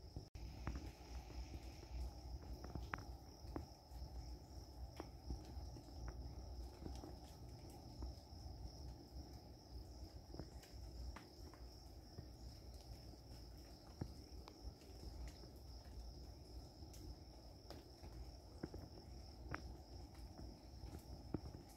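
Crickets trilling steadily at one high pitch, with scattered faint clicks and a low rumble underneath.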